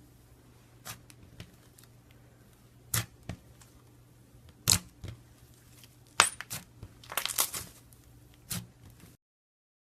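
Slime mixed with clay being squeezed and stretched by hand, giving irregular sharp clicking pops, with a quick run of them about seven seconds in.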